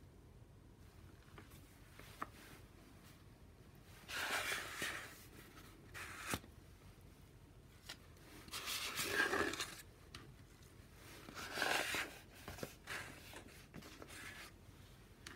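A sheet of paper being lifted off a tray of shaving cream and the foam scraped off its surface: three short, scraping swishes of paper, with a couple of small clicks between them.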